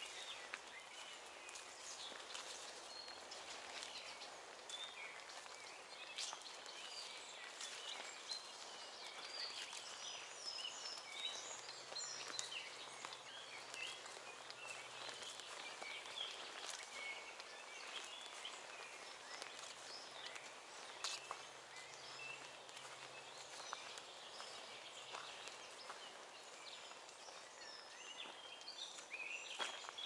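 Chorus of small songbirds, several singing at once with quick high chirps and trills, over a faint steady hiss of forest background, with occasional soft footsteps on a grassy track.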